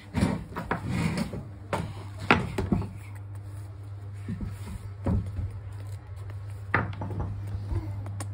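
Scattered knocks and scuffs on a wooden plank floor as a baby monkey is handled and moves about, a cluster in the first three seconds and single knocks about five and seven seconds in, over a steady low hum.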